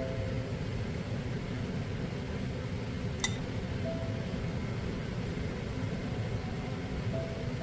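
A steady low rumbling noise under sparse, soft background music notes, with one sharp click about three seconds in.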